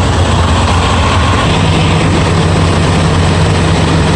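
Semi truck's diesel engine running steadily at a raised idle, a low continuous hum with a slightly higher tone joining about a second and a half in.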